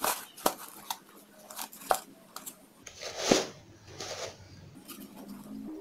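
Baked peanut cookies (kue kacang) being scooped by hand off a metal baking tray into a bowl. Light clicks as the cookies knock against each other and the tray, then a louder scraping rustle about three seconds in.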